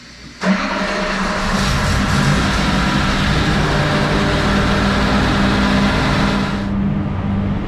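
Adams Automotive-built V8 race engine on an engine dyno firing up about half a second in and running steadily to put heat in it before a pull. The sound turns duller near the end.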